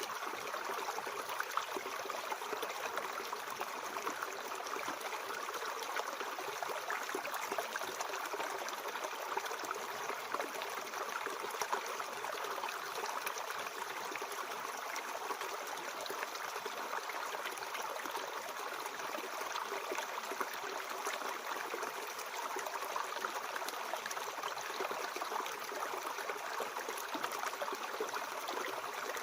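Mountain stream flowing steadily over rocks, a continuous rushing and gurgling of water.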